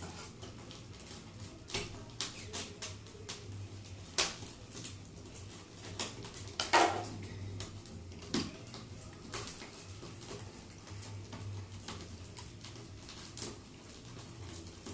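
Scattered light clicks and taps of kitchen things being handled at a counter, over a low steady hum, with a brief squeal about seven seconds in.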